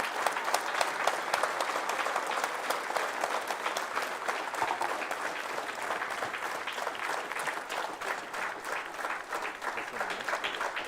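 A roomful of people applauding, dense clapping with voices mixed in.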